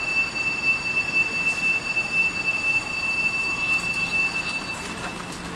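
A steady high-pitched electronic tone sounds and cuts off near the end, over the shuffle of footsteps and rolling suitcase wheels of passengers boarding a train at its open door.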